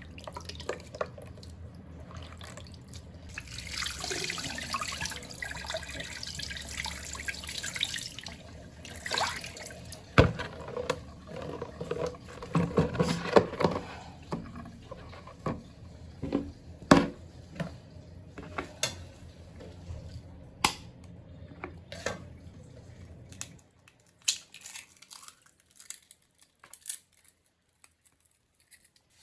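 Water running from a tap into a sink for a few seconds, followed by scattered knocks and clicks of things being handled in the sink. The sounds thin out to a few faint clicks near the end.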